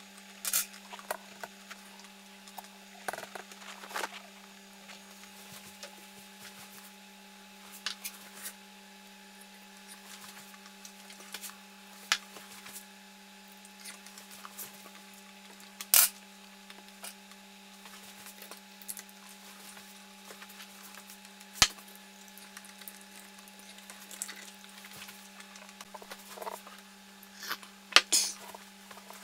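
Sparse light clicks and taps of tableware, a spoon at a soft-boiled egg in its egg cup and a china coffee cup handled, over a steady low hum. The loudest knocks come near the end as the cup is taken up.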